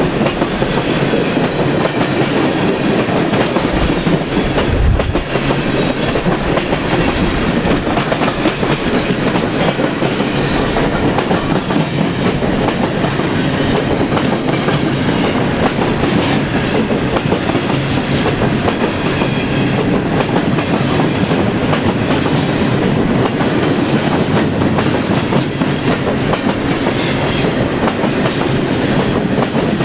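CN freight train rolling steadily past, its cars and wheels on the rails making a continuous loud rumble and rattle with no horn.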